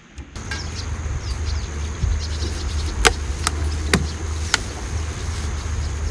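Wind buffeting the microphone, a steady low rumble, with four sharp clicks about three to four and a half seconds in.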